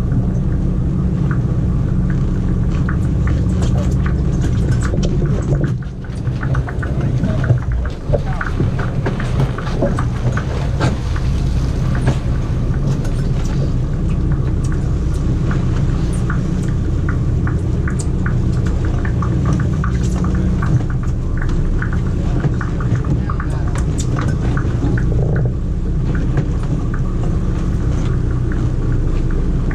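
Sportfishing boat's engine running with a steady low drone, with indistinct voices and a few clicks and knocks on deck over it.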